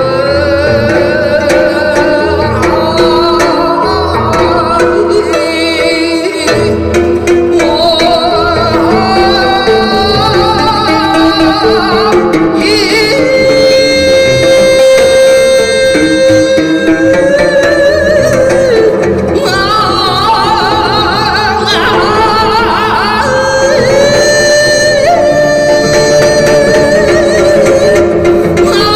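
Live music: a voice sings in Korean folk-song (Gyeonggi minyo) style over instrumental accompaniment, with wavering, ornamented pitch and long held notes.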